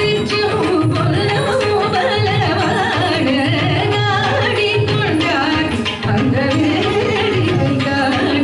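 Carnatic vocal song: a singer's voice gliding through ornamented phrases over steady hand-drum strokes.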